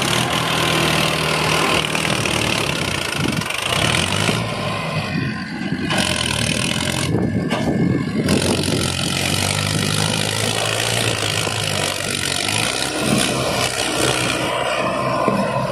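Mahindra Arjun Ultra-1 555 DI tractor's four-cylinder diesel engine running hard under load while pulling a fully loaded trolley of earth. The engine note is loud and steady, shifting in pitch a few times.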